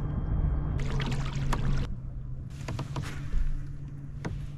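Water splashing and trickling against a fishing kayak's hull, with a scatter of small sharp knocks and ticks, over a steady low hum.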